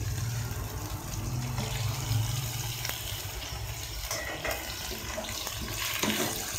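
Steady sizzling hiss of a pan of leftover karahi gosht as boiled macaroni is tipped into it from a plastic colander, with a louder rustle about six seconds in.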